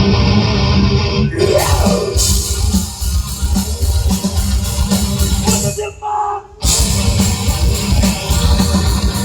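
Heavy metal band playing, with distorted guitars and drum kit. The music breaks off for about half a second about six seconds in, then comes back in at full force.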